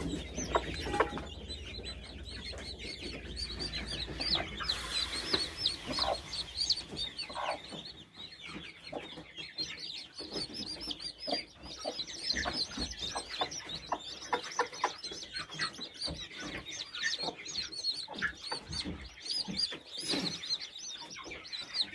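A brood of newly hatched chicks peeping almost without pause, many short high peeps overlapping, while the broody hen clucks among them.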